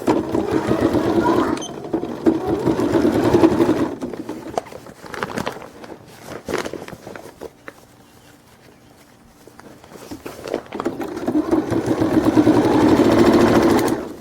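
Home sewing machine stitching the binding on an inflatable slide in two runs of about four seconds each. Between the runs there is a pause of several seconds with only a few light clicks.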